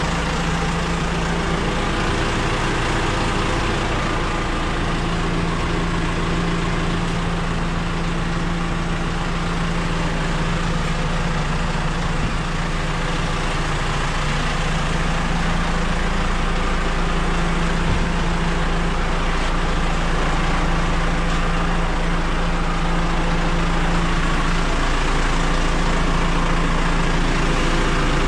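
JCB 4CX backhoe loader's diesel engine running steadily, with an even low hum.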